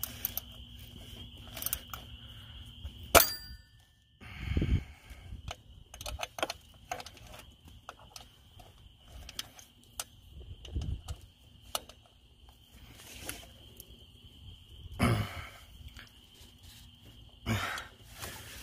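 Serpentine belt being worked by hand onto the pulleys and a new belt tensioner: scattered clicks and light knocks of rubber and metal, the sharpest about three seconds in. A few short, dull, low bumps come later on.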